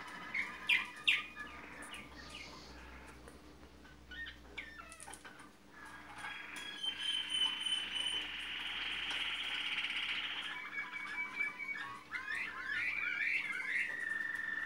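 Malinois (Waterslager) song canary singing: varied phrases with a long, steady rolling trill through the middle and quick up-and-down gliding notes near the end. A couple of sharp clicks about a second in.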